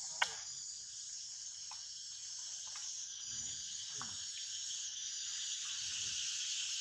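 Steady, high-pitched chorus of insects, with one sharp click about a quarter of a second in and a few faint short sounds underneath.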